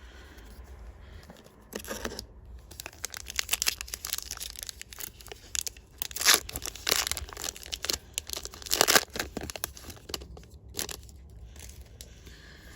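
A trading-card booster pack wrapper being torn open and crinkled: a run of sharp crackles that starts about two seconds in, is loudest around the middle and again a little later, and dies down shortly before the end.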